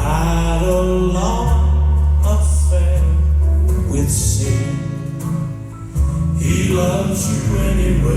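Male gospel quartet singing in harmony over backing music with strong sustained bass notes; the music dips briefly about five to six seconds in, then swells again.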